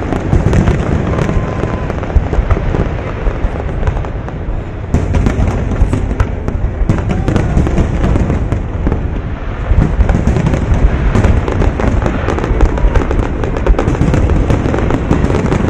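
Aerial fireworks shells bursting in a continuous barrage: dense overlapping booms and crackles, several a second, growing louder and sharper from about ten seconds in.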